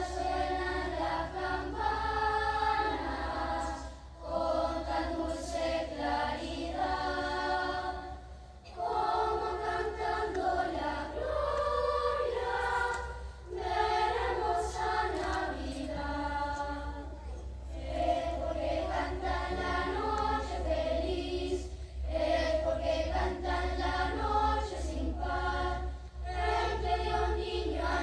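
Children's choir singing, in phrases of about four seconds with short breaks between them.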